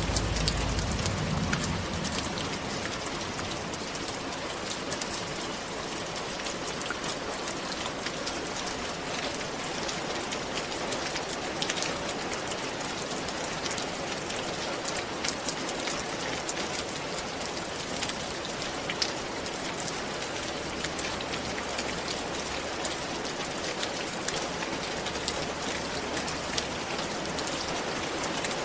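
Steady rain falling on a roof: an even hiss full of many separate sharp drop ticks. A low rumble sits under it in the first two seconds.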